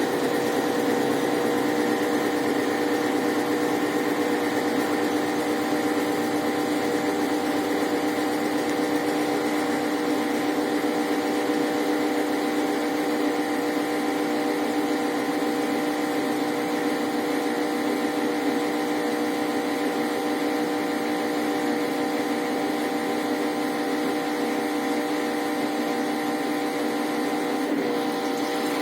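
Brastemp Ative 11 kg top-loading washing machine running, its motor giving a steady hum with several constant tones and no change in pitch or rhythm.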